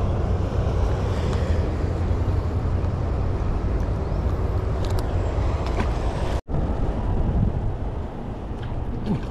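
Steady low rumble of wind buffeting the microphone, with a brief complete dropout about six and a half seconds in.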